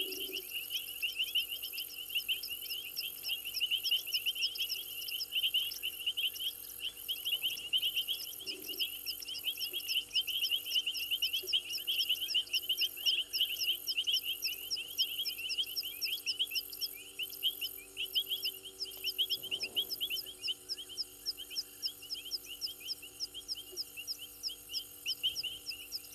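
Chorus of frogs and insects at a waterhole: a dense, rapid trilling throughout, with a higher insect buzz pulsing about twice a second that stops pulsing about twenty seconds in.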